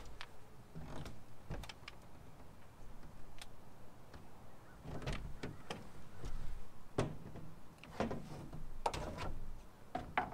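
Irregular clicks and knocks of fishing gear being handled against the boat's deck and gunwale, with a few louder clatters about halfway through and near the end.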